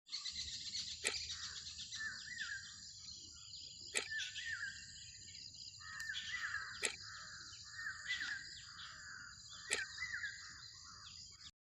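Birds calling over and over in short, gliding phrases, over a steady high-pitched buzz and a faint low rush of flowing water. Five sharp clicks stand out, and all of it cuts off suddenly near the end.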